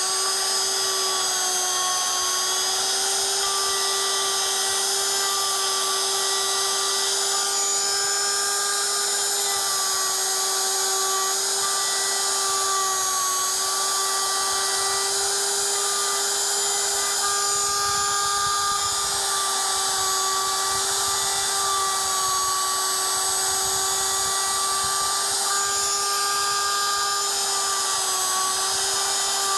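Compact trim router running at full speed with a steady high whine, its quarter-inch four-flute bit widening a hole in a board for a T-nut insert; the pitch wavers slightly as the bit cuts.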